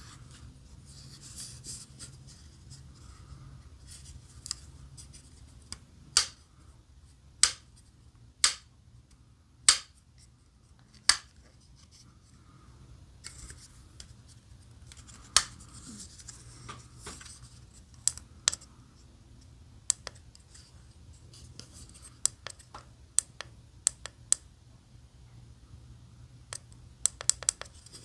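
Sharp hard-plastic clicks and soft rubbing as a QIAYA clip-on selfie ring light is handled, its spring clip worked open and shut; the clicks come singly every second or two, then several in quick succession near the end.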